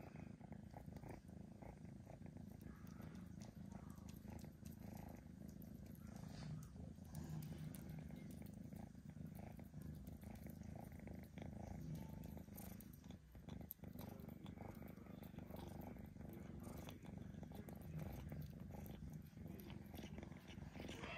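Kitten purring steadily in a low rumble while chewing a slice of corned beef, with small wet chewing clicks over the purr.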